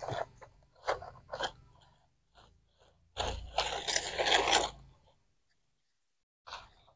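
Plastic toy helicopter pushed and dragged through gritty sand, crunching and scraping: a few short scrapes about a second in, then a longer scrape of about a second and a half around three seconds in.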